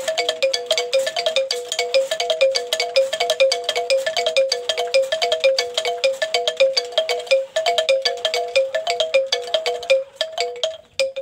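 Bamboo wind-chime gamelan (kincir angin gamelan): wooden strikers turned by its propeller tap tuned bamboo keys in a fast, even two-note clacking pattern. Near the end the strikes thin out as it slows.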